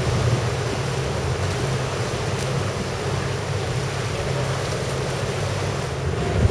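Sailing yacht's inboard engine running steadily as a low drone, under wind noise on the microphone and rushing water.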